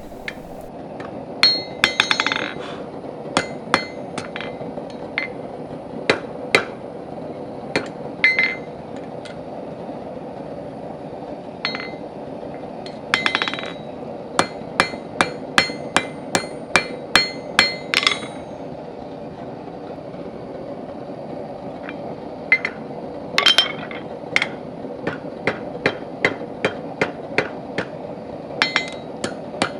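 Hand hammer forging a steel bar on the anvil horn, knocking down the corners of the hinge's end and rounding it over. The blows are irregular, with brief rapid flurries and a short metallic ring after some strikes, over a steady hum.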